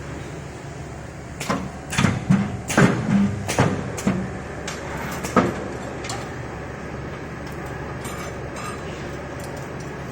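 Steel chain welding machine running with a steady mechanical hum; about one and a half seconds in, a run of about ten sharp metallic clanks and knocks follows over four seconds, then the hum goes on alone.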